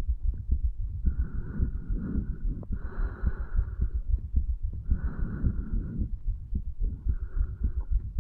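A man's heartbeat picked up on the chest over the tricuspid valve area, a steady run of low thumps. Breath noise swells in and out every second or two over the beats.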